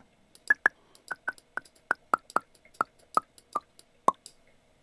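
A cork bottle-pop sample played as a pitched instrument in the EXS24 sampler, struck about a dozen times in quick, uneven succession. The pitch of the pops steps down as the sample's root key is moved to bring the note to C.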